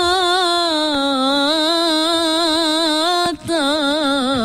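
A young female voice singing unaccompanied, holding a long, wavering, ornamented note. There is a quick break for breath a little over three seconds in, then another ornamented held note.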